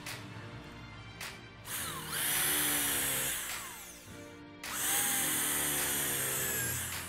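Corded Wesco electric drill with a countersink bit boring into a wooden board, twice: a spell of about a second and a half beginning two seconds in, and a longer one of about two seconds near the end, the motor's pitch rising as it spins up and falling as it stops. Each bore cuts the dowel hole and its countersink in one pass.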